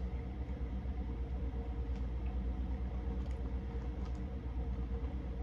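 Steady low hum of room background noise with a faint steady tone over it, and a few faint, brief clicks.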